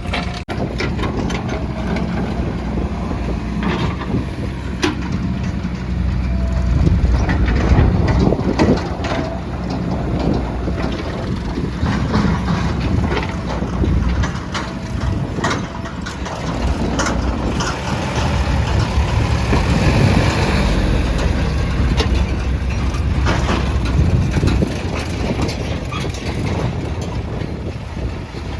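Diesel engines of backhoe loaders at work, running under load and rising in revs twice, with scattered metallic clanks and knocks throughout.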